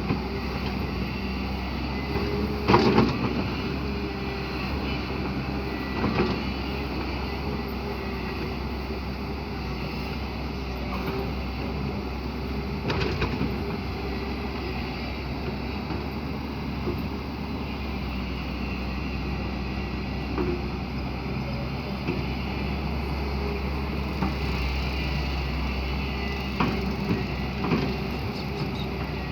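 Hyundai excavator's diesel engine running steadily under work, with several sharp knocks and clanks from the working machine scattered through.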